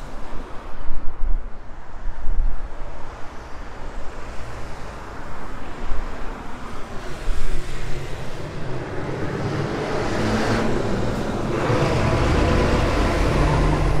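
Street traffic: a motor vehicle approaches and passes close by, its engine and tyre noise building to a steady peak in the second half over a background of city traffic.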